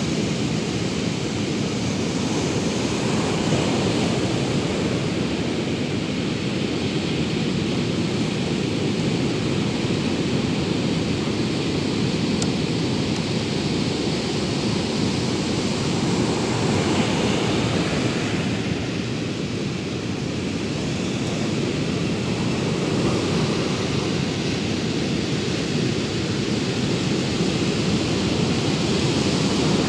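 Steady wash of surf on a sandy beach, with some wind noise on the microphone; the level swells and eases slightly.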